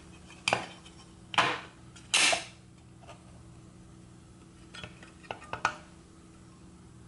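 Metal clinks and scrapes of an Evinrude 3 HP outboard's recoil-starter pulley being worked up out of its aluminium pull-start housing: three louder knocks in the first two and a half seconds, then a few light clicks near the end.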